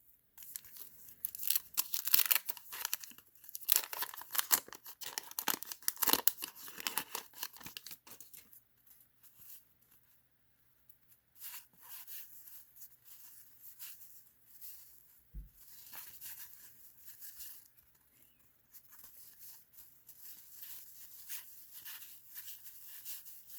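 Wax-paper card pack wrapper being torn open and crinkled in the hands, loudest over the first several seconds. After a short pause comes softer rustling of paper and cards, with a single soft knock about halfway through.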